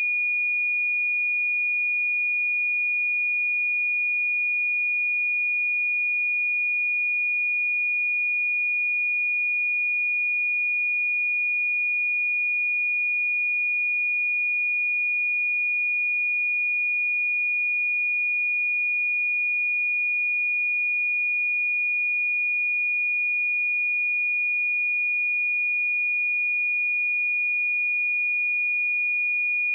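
A pure 2445 Hz sine-wave test tone, one steady high-pitched note held at constant level without change.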